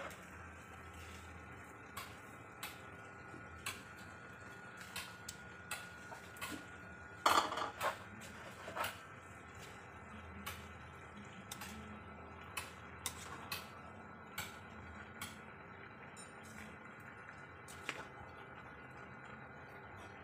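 A metal ladle clinking and scraping against a metal cooking pot while stirring, with many short sharp clicks throughout and a louder clatter about seven seconds in.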